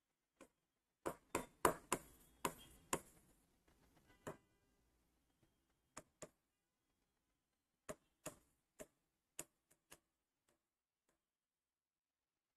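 Chalk tapping and scratching against a blackboard as words are written: a quick run of sharp taps in the first few seconds, then scattered single and paired taps. The taps are faint.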